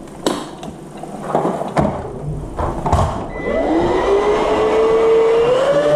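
A few knocks and clicks of handling, then an appliance's electric motor starts about three and a half seconds in. Its whine rises in pitch as it spins up, steps up once more near the end, and settles into a steady high hum.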